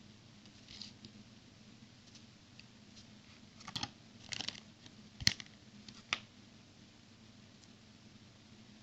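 Plastic building bricks handled and clicked together: a few short clicks and rattles in the middle, the sharpest about five seconds in, over a low steady hum.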